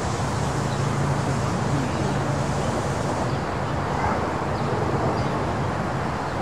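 Steady outdoor background noise with a low, even hum. About four seconds in come a few faint, short, high-pitched calls, likely from a Bolivian squirrel monkey.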